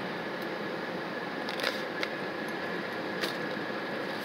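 Steady in-cabin road noise of a vehicle rolling slowly over a rough, patched road surface, with a few sharp clicks or knocks, the loudest about a second and a half in and again a little after three seconds.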